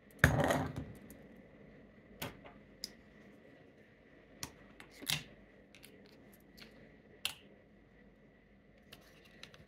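Handling noise of a Canon FX 35 mm SLR as its rewind knob is pulled up and a film cassette is set into the film chamber. There is a loud knock-and-rub lasting about half a second near the start, then scattered short clicks and taps of metal and plastic.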